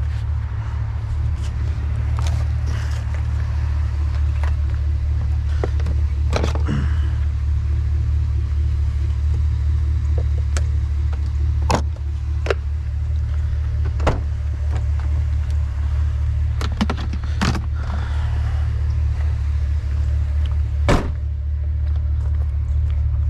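Pickup truck engine idling with a steady low hum, with a few scattered sharp knocks and clinks over it.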